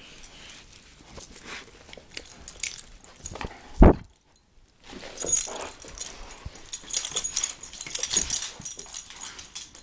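A dog playing with a sock: scuffling, with rapid light clicking and rustling that grows busier over the second half. A single loud bump comes about four seconds in, and the sound drops out briefly just after it.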